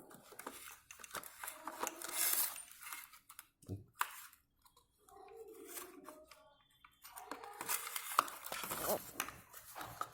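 Plastic parts of a car wing mirror assembly being handled: irregular clicks, scrapes and rattles as the mirror adjustment unit's screws are worked, with one sharper knock about four seconds in.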